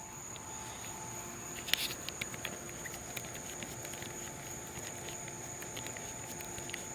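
Insects calling outdoors in a steady, high-pitched chorus, with a few faint clicks about two seconds in.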